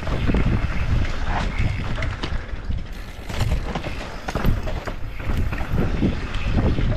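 Mountain bike running fast down a rough dirt trail: tyres rumbling over the ground and the bike rattling with many sharp knocks, with wind buffeting the microphone.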